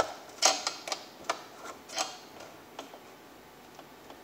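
Irregular metallic clicks and taps from a hand tool working a fastener on a small two-stroke engine. There are about half a dozen in the first three seconds, then it goes quiet.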